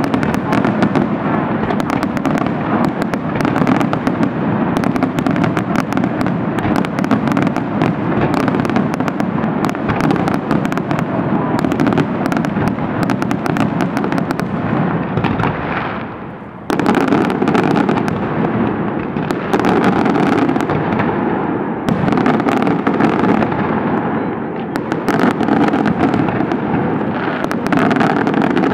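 Fireworks display: a continuous barrage of rapid bangs and crackling from shells bursting overhead. About sixteen seconds in it dips briefly, then resumes suddenly at full strength.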